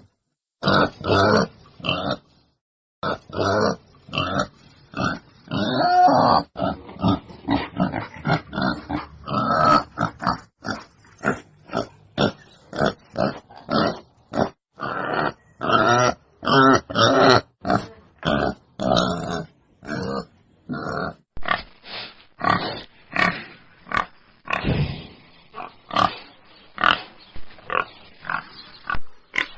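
Wild boar grunting: a long, irregular run of short, rough grunts, often several a second, with brief pauses.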